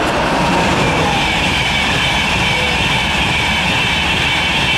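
A modern passenger train passing close at speed: a loud, steady rush of wheels on rails, with a thin high squeal that sets in about a second in.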